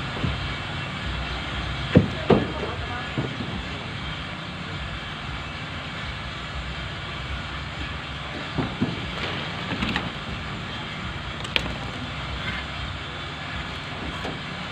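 A small engine running steadily, with scattered knocks and clatter, a few close together about two seconds in and more a little past the middle.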